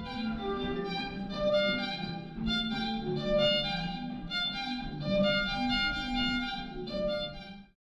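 Classical music led by a violin, played over the tunnel's sound system. It cuts off suddenly near the end.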